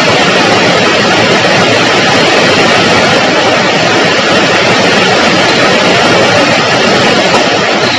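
Heavy rain on a roof: a loud, steady, even rushing noise.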